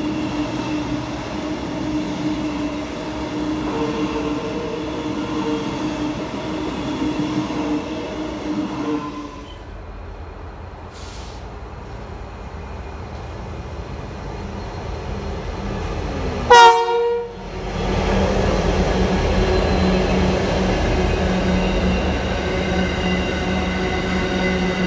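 An electric suburban train running with a steady motor whine, until the sound drops off abruptly about nine seconds in. A diesel-hauled freight train then approaches with a building rumble and gives one short, very loud horn blast about two-thirds of the way through. After the horn, the diesel locomotives' engines run steadily as the freight wagons rumble past.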